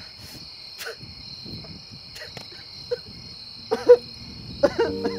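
Crickets chirring steadily in the night. About four seconds in, a short, loud wavering cry, and just before the end held musical tones of the film score begin.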